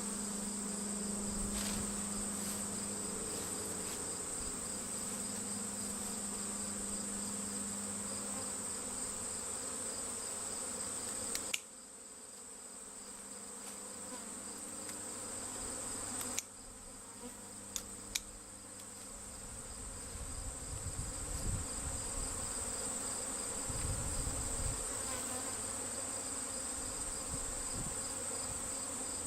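A swarm of honeybees buzzing, a steady low hum, over a steady high-pitched insect trill. The sound drops away abruptly twice, about 12 and 16 seconds in, and builds back each time; a couple of sharp clicks come about 18 seconds in.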